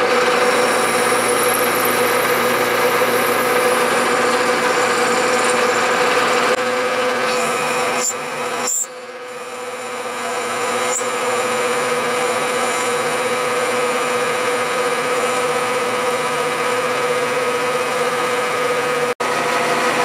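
Bridgeport milling machine running a 3/8-inch end mill that cuts a slot into 1-inch welded steel tubing: a steady machine hum with a strong steady tone and the noise of the cut. It drops back briefly about nine seconds in, then builds up again.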